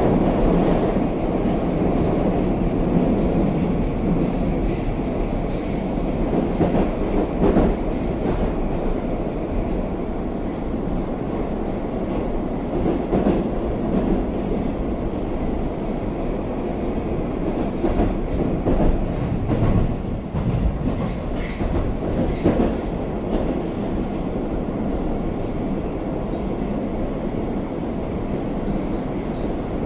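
Moscow metro 81-760/761 'Oka' train heard from inside a passenger car while running: a steady rumble of wheels on rails and running gear, with occasional clicks and knocks from the track.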